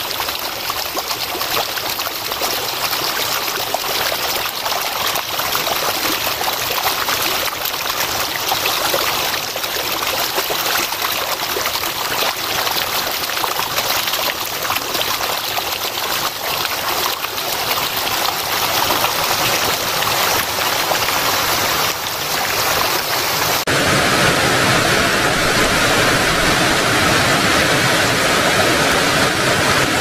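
Snowmelt water running over a rock in a small mountain stream, a steady rushing and splashing. About 24 s in it changes to a louder, fuller rush from a small cascade in the stream.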